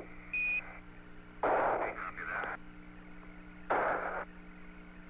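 A short Quindar beep on the Apollo air-to-ground radio loop, a single steady tone of about a third of a second that marks the end of a CAPCOM transmission. It is followed by two brief bursts of radio static, about a second apart, over a steady low hum.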